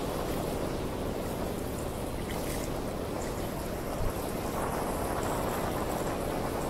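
Steady rushing noise of a bicycle rolling over rain-wet pavement, the tyres swishing on the wet road, with one brief thump about four seconds in.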